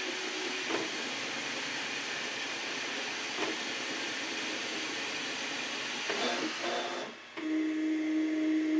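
FlashForge AD5X 3D printer running: a steady hiss of cooling fans with brief stepper-motor tones as the printhead moves. About seven seconds in the sound drops for a moment, then a steady low motor whine starts as the head moves off the finished print.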